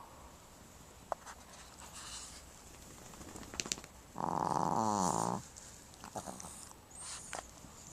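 A sleeping dog snoring. One loud snore comes about halfway through, lasts a little over a second and drops in pitch at its end, with only quiet sound on either side of it.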